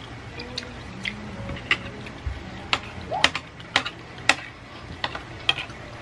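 Close-up eating sounds of chewing a mouthful of jajangmyeon (black-bean noodles), with a run of sharp clicks from about halfway through.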